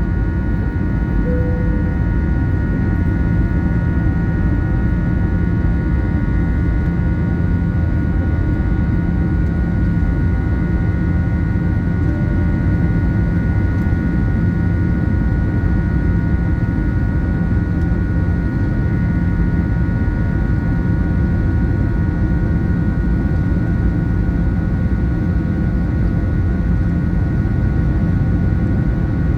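Airplane engines running at take-off power: a loud, steady rumble with a steady high whine over it.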